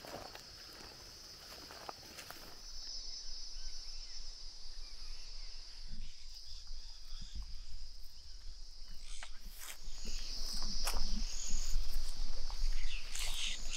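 A steady high insect chorus, with footsteps crunching through dry grass and rustling past scrub, louder and busier from about three seconds in as the walkers hurry forward.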